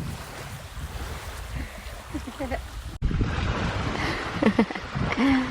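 Wind rumbling on the microphone over surf at the shore. About three seconds in, the sound cuts abruptly, then a few short voice sounds follow near the end.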